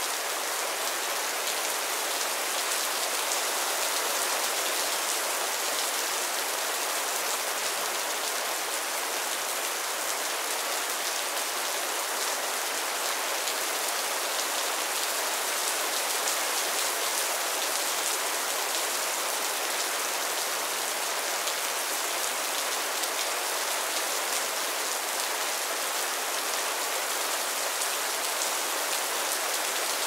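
Steady rain: an even hiss of many small drops that does not let up.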